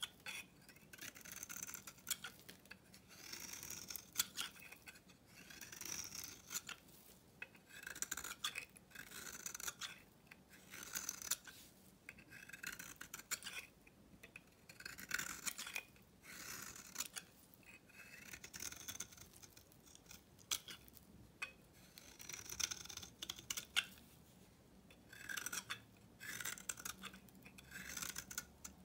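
Knife blade shaving curls off an old, dry bar of Svoboda-factory soap held in the hand. Repeated crisp scraping strokes, about one a second, each with sharp crackles as the soap crumbles.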